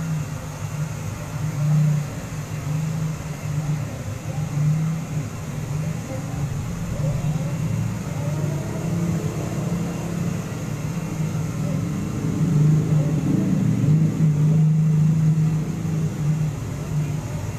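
Handheld hair dryer running steadily, a constant motor hum and air rush, with voices in the background.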